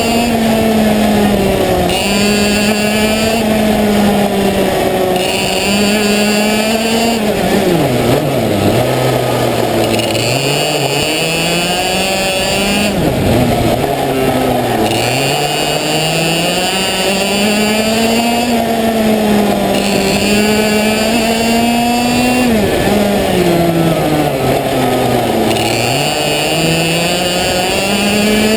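Parilla Leopard 125 cc two-stroke kart engine at racing speed, heard onboard, holding a high, steady pitch on the straights. Twice, about 8 seconds in and again about 22 seconds in, the pitch drops to roughly half as the kart slows for a corner, then climbs steadily back up as it accelerates out.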